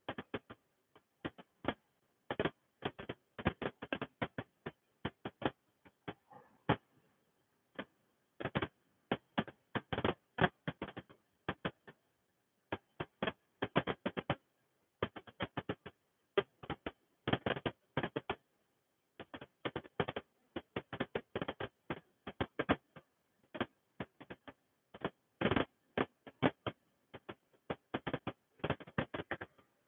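Irregular dry clicking and crackling, many sharp clicks a second in clusters with short gaps between them.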